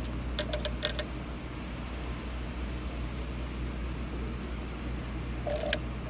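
Light clicks and knocks of a replacement fridge fan motor and its mounting bracket being handled and fitted, a quick cluster of clicks about half a second in and a single sharper click near the end, over a steady low hum.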